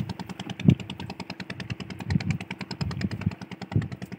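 Engine running with a rapid, even knock, under irregular low thumps.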